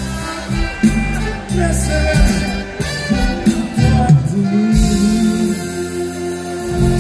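Band music: an instrumental passage with held notes and no clear vocal line.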